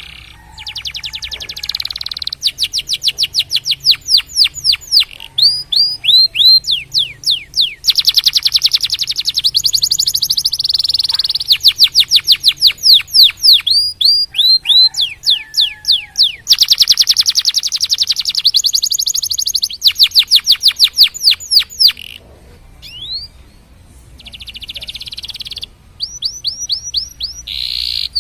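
Domestic canary singing: long rolling phrases of rapidly repeated, high, downward-sweeping notes, each phrase at its own speed, switching from slower tours to very fast trills, with a brief lull near the end before singing resumes.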